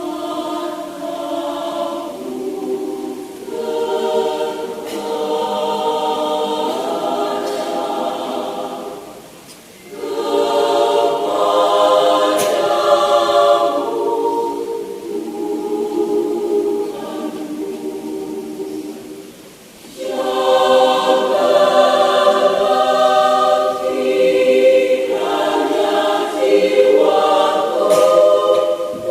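Mixed adult church choir singing in several parts, holding long chords. The phrases break off briefly about a third and two thirds of the way through, and the choir comes back louder for the last phrase.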